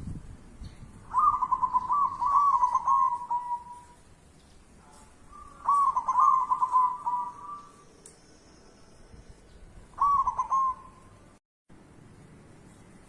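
Zebra dove (perkutut) cooing: three phrases of soft, bubbling coos. The first two run a couple of seconds each and end in a drawn-out note; the third, about ten seconds in, is short.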